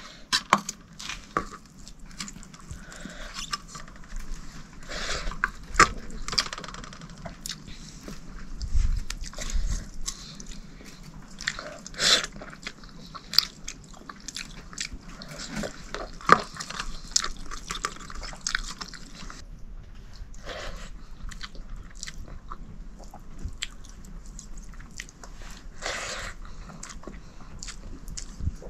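Someone eating: chewing and crunching, with irregular sharp clicks and knocks throughout and a low thud about nine seconds in.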